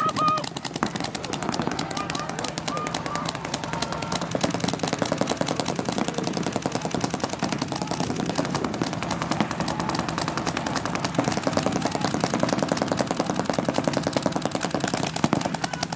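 Paintball markers from several players firing rapidly and continuously, a dense, unbroken stream of pops.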